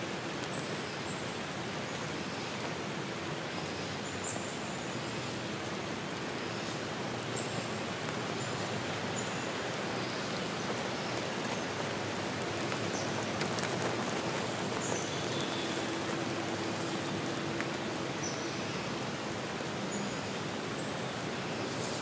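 Steady rushing of water, with brief high bird chirps now and then.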